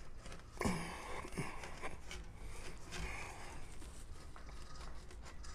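Brass bugle bell flare being pressed and worked over a steel roller held in a vise: a sharp knock of brass on steel with a short ring about half a second in, a lighter tick soon after, then faint rubbing and handling.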